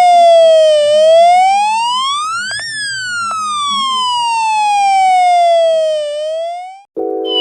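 Homemade electronic police siren, a UM3561 siren chip driving a small 4-ohm speaker through a transistor, wailing with a slow up-and-down sweep in pitch that peaks about three seconds in. It cuts off suddenly about seven seconds in, and a different tone pattern starts just before the end.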